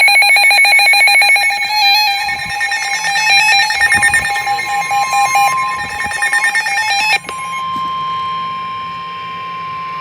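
Several NOAA weather radio receivers sounding rapid electronic alert beeps on several pitches, over the steady 1050 Hz warning alarm tone that signals a Special Marine Warning. The beeping stops about seven seconds in, leaving the single steady tone.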